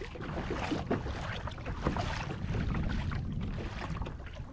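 Wind buffeting the microphone in a low, steady rumble, with water splashing and lapping around a kayak in short, irregular ticks.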